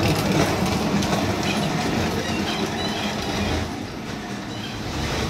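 Hard plastic wheels of a Little Tikes Cozy Coupe ride-on car rolling over a concrete floor as it is pushed, a steady rumbling clatter that eases a little about four seconds in.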